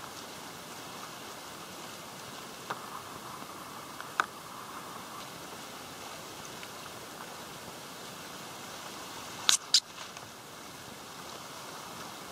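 Whitewater of a river-mouth standing wave rushing around a surfing sea kayak, a steady hiss with spray pattering on the deck-mounted camera. A few sharp ticks break through it, the loudest two in quick succession about nine and a half seconds in.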